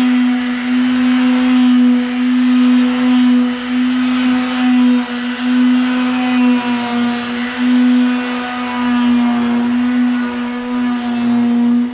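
A motor running steadily at a constant pitch: an even, loud hum with a hiss over it.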